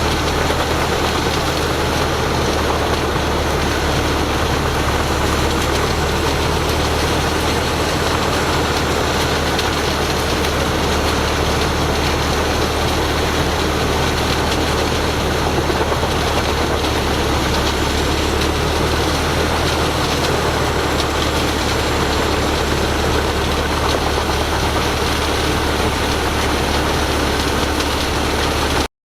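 Heavy diesel machinery running steadily, a constant loud engine drone with a strong low hum. The sound cuts out for an instant near the end.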